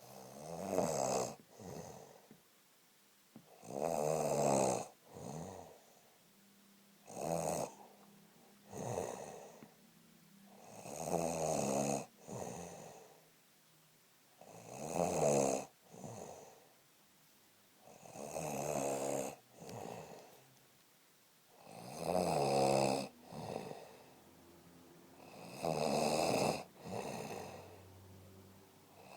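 Steady rhythmic snoring: a loud snore about every three and a half seconds, most followed by a shorter, softer one.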